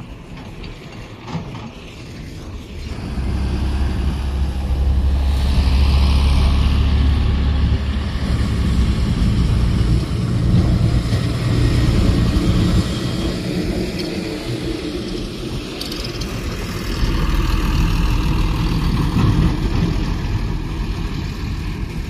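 Heavy diesel tipper dump trucks driving on loose sand, their engines giving a loud low rumble that builds up about three seconds in and carries on.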